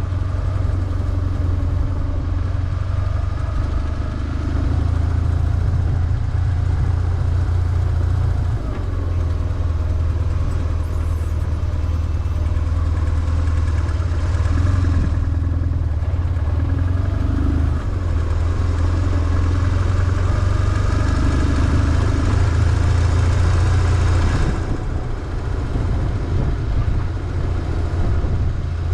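BMW R1150GS air-cooled boxer twin engine running with a steady low drone. The upper part of the engine sound falls away briefly about halfway through, and again near the end as the throttle eases off.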